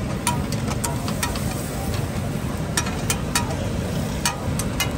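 Metal spatulas clinking against a hot iron tawa while mutton liver fries in masala: about ten irregular sharp clinks, some ringing briefly, over a steady low rumble.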